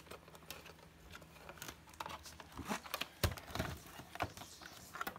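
Hands working at a UPS battery compartment, trying to free the stuck battery: scattered small clicks, scrapes and knocks on the casing, with a sharper knock about three seconds in.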